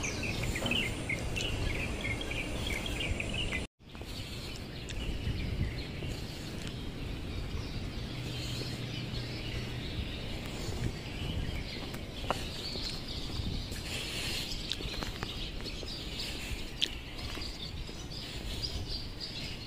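Outdoor ambience of birds chirping over a steady low background noise. The sound cuts out completely for a moment a little under four seconds in.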